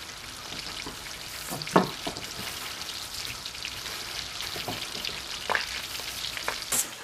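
Flour-dredged chicken breast frying in butter and olive oil in a skillet: a steady sizzle full of small crackles and pops. A few sharp clicks stand out, the loudest about two seconds in.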